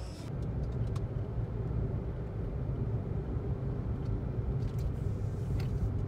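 Steady engine and road rumble of a car driving, heard from inside the cabin, with a couple of faint clicks.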